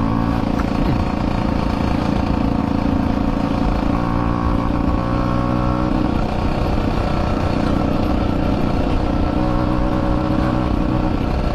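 Two-stroke motorbike engine running steadily under way, its pitch holding fairly even with small shifts.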